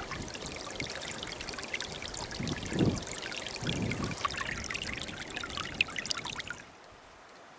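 Shallow stream babbling and trickling over stones. Two brief low rumbles sound near the middle, and the water cuts off about a second before the end.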